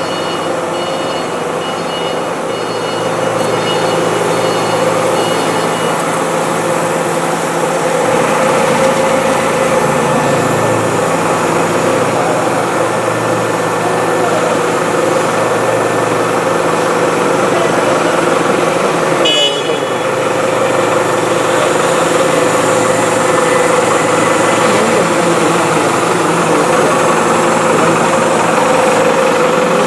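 5-axis CNC router's spindle running and milling a block of white foam: a steady whine over a constant cutting hiss. One short click about two-thirds of the way in.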